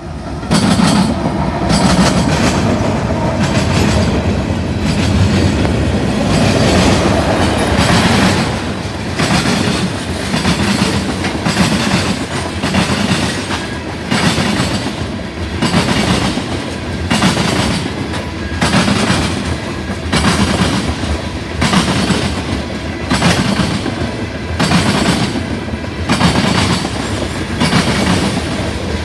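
Diesel-hauled CN freight train passing close by: the GE locomotive's engine rumbles past in the first several seconds, then a string of tank cars rolls by with a steady clickety-clack of wheels over the track joints, about one beat every second and a half.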